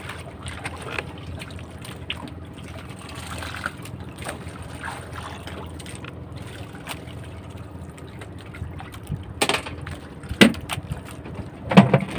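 Outrigger fishing boat trolling with its engine running low and steady, water sloshing and trickling against the hull as a handline is hauled in. Several sharp knocks sound in the last few seconds.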